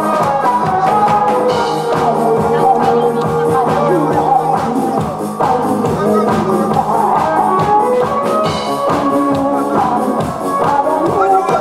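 A woman singing live into a microphone over a loud backing track with a steady beat.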